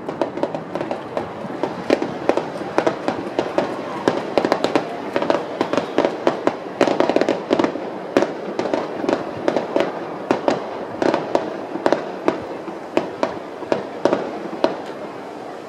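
Fireworks finale: a dense barrage of shell bursts going off several times a second, thinning out toward the end.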